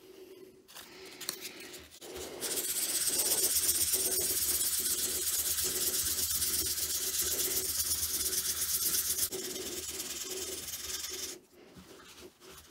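800-grit wet/dry sandpaper wet-sanding a bronze-filled PLA 3D print: a rapid back-and-forth rubbing hiss that starts about two seconds in, eases off around nine seconds and stops about a second before the end.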